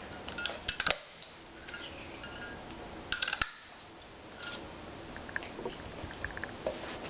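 A handheld 3/4 inch circle punch clacking as it punches circles out of cardstock: two sharp snaps, about a second in and again about two and a half seconds later, with faint paper handling between.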